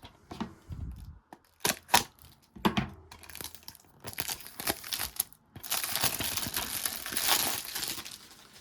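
A few sharp clicks, then several seconds of plastic film crinkling and tearing: the shrink wrap being pulled off a sealed DVD case.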